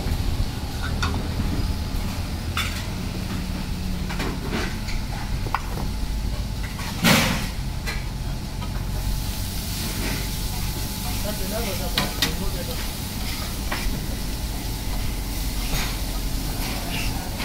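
Idli pieces and toppings sizzling steadily on a hot flat iron griddle (tawa), with scattered metal clicks and one louder sudden noise about seven seconds in. Near the end a metal spatula scrapes and chops across the griddle.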